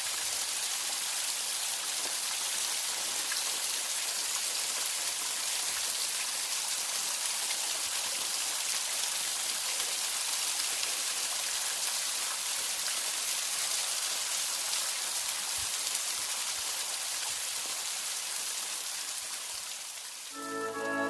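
Steady rushing of water from a partly frozen waterfall, an even hiss with no breaks. Music comes in just before the end.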